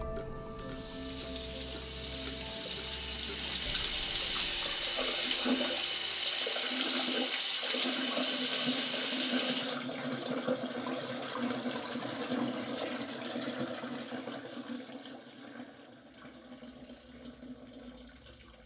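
Tap water running into a utility sink while hands are scrubbed under it. The steady hiss of the running water cuts off suddenly about halfway through, leaving quieter splashing and scrubbing that fades toward the end.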